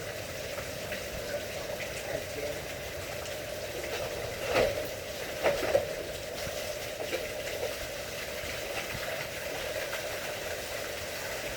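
Steady rushing noise with a sharp knock a little before halfway, then two more knocks close together about a second later.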